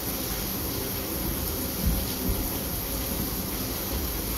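Steady hissing background noise, with one dull low thump about two seconds in.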